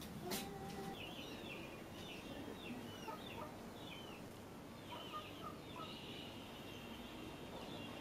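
Small birds chirping: quick, short high notes in a loose series, turning into a thin, steady trill near the end. A chicken gives one short, low call just after the start.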